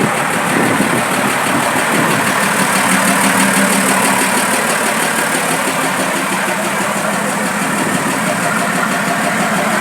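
Fiat 190 truck's diesel engine idling steadily, its revs settled at an even idle.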